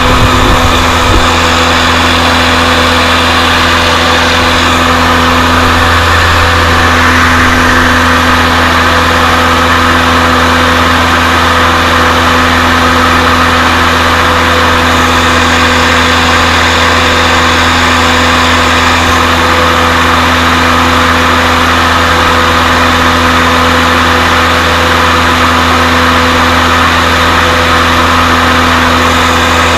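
Finn bark blower running steadily under load: a constant engine drone with a strong rushing hiss of air and mulch being blown through the hose.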